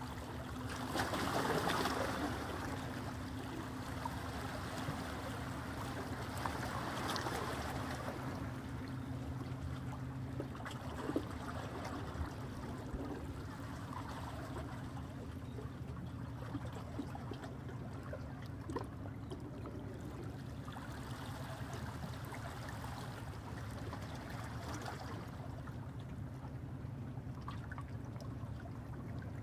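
Water lapping and splashing, over a steady low engine hum from a vessel on the river. One of the lower hum tones drops out about ten seconds in.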